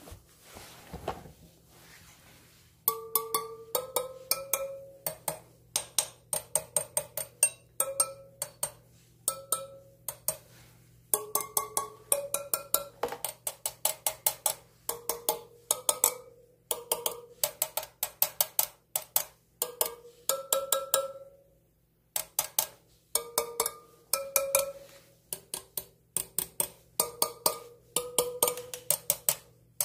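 Spokes of a BMW F850 GS spoked wheel tapped one after another with a metal rod, each tap a short metallic ping, in quick runs with short pauses between. The pings differ in pitch from spoke to spoke, which is how spoke tension is checked by ear.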